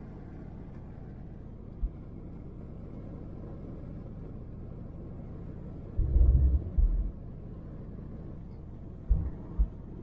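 Steady low rumble of a pickup truck driving on a snow-packed road, heard from inside the cab. A single low thump comes about two seconds in, and loud low thumps come in clusters about six seconds in and again near the end.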